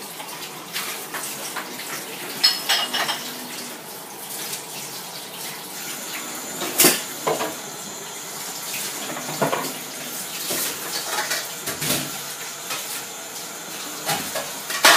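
Tap water running into a sink, with dishes and cutlery clinking and knocking every second or two as they are washed.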